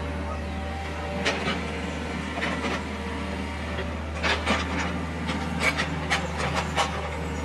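Kubota KX91-2 mini excavator's diesel engine running steadily, with sharp scrapes and clacks of the steel bucket working gravel and stones: a few about a second in, then a quick run of them in the second half.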